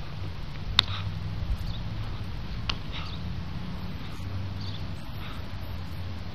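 Outdoor background: a steady low rumble with a few brief sharp ticks, the loudest about a second in and another near the middle.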